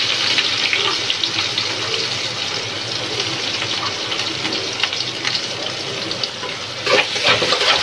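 Chopped onion sizzling in hot ghee with mustard seeds and chana dal in a steel kadhai, stirred with a steel spatula, with a few louder scrapes near the end.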